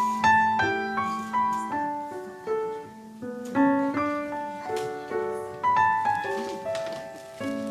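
Piano playing a slow, gentle piece: single melody notes over chords, each note struck and left to ring and fade.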